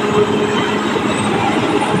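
Caterpillar D6R XL crawler bulldozer working: a steady diesel engine note under the clatter of its steel tracks, with faint high squeals from the track running gear.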